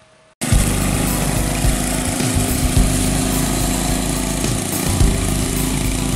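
Small go-kart engine running steadily as the kart drives along, cutting in suddenly about half a second in.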